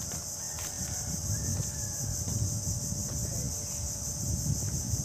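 Steady high-pitched insect chorus, an unbroken shrill drone from mangrove insects, over a low rumbling noise, with a few faint clicks.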